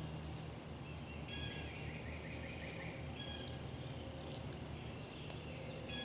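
Birds calling outdoors: a short call repeats about every two seconds, with a rapid trill about a second and a half in, over a steady low rumble of background noise. A few faint sharp clicks.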